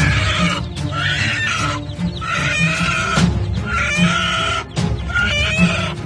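A mother hen squawking loudly and repeatedly, about once a second, as she attacks an eagle in defence of her chicks, over background music.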